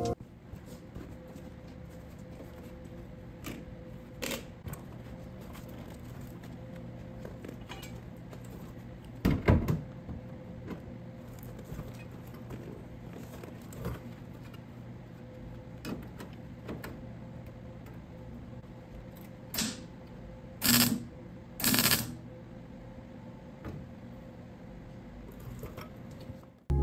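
MIG welder tacking a steel patch panel into a rusted truck wheel arch: a few short bursts of welding, one about a third of the way in and three close together later on, over a low steady hum with occasional light metal clicks.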